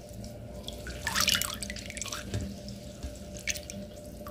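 Strained blackberry ferment dripping from a cloth-lined sieve into the container below, in irregular drips and small trickles.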